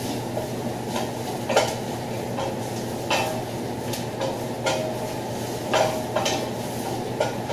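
A long-handled spoon stirring frying onions in a metal saucepan, scraping and clinking against the pan with sharp clinks roughly once a second, over a steady background hum.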